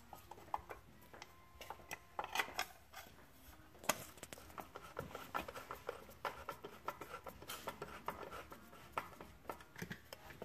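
Faint clicks and light taps from fitting a cover panel onto an electric fat bike's frame and working its screws with a long screwdriver, with one sharper click about four seconds in and a run of quick small ticks in the second half.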